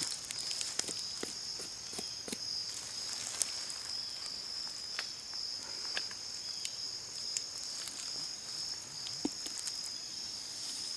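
Steady high-pitched insect chorus of crickets trilling in the woods, with scattered faint ticks and crackles.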